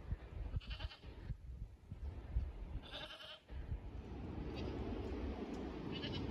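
Goat bleating: two calls about two seconds apart, then a short third one near the end, over low thumps and rustling.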